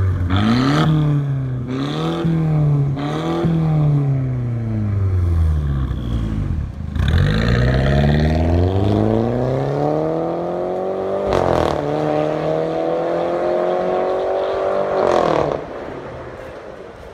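Mercedes-Benz W204 engine through a stainless steel valved catback exhaust: three quick revs while stationary, then a hard pull away with the pitch climbing steadily. A sharp crack about eleven seconds in marks an upshift, and the revs climb again before the throttle is lifted near the end and the sound falls away into the distance.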